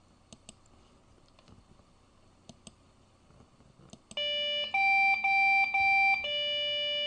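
A Lenovo desktop computer's BIOS POST beep code, played back: after a few faint clicks, electronic beeps start about four seconds in, a lower tone, then three equal beeps at a higher pitch, then a longer lower tone. It is the repeating beep code of a PC that won't boot, which the owner matches, loosely, to Lenovo's code for memory not detected.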